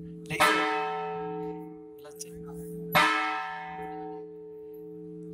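Large temple bell struck twice, about two and a half seconds apart, each stroke ringing on until the next.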